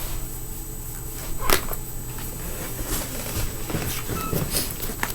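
A few light clicks and taps, about four over the stretch, from small fingerboard parts and a tool being handled on a hard surface, over a steady low background hum.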